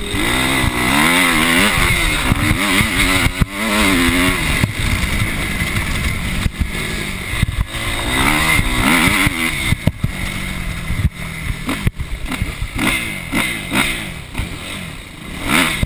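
Motocross bike engine revving hard, its pitch repeatedly rising and falling with throttle and gear changes, heard on board the bike. Sharp knocks and rattles from the bike over the rough dirt track come through the engine noise, and the revving is lighter in the second half.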